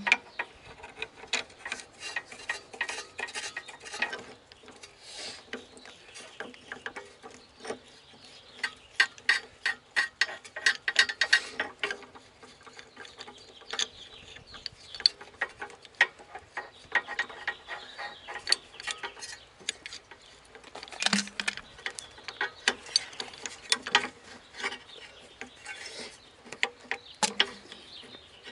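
Hand tools at work on a car: a long run of irregular metallic clicks in clusters, with ratcheting.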